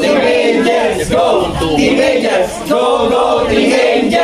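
A group of voices singing together without instruments.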